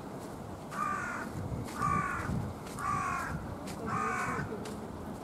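A crow cawing four times, each caw about half a second long and about a second apart.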